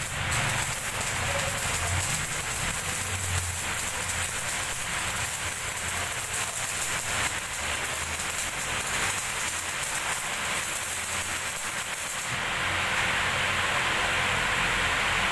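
Stick arc welding: a steady crackle and sizzle of the electrode arc that stops about twelve seconds in, leaving a smoother steady hiss of shop noise.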